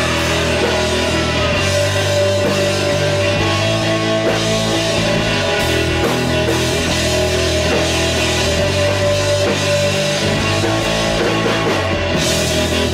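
Background music: loud, steady rock with electric guitar and drums.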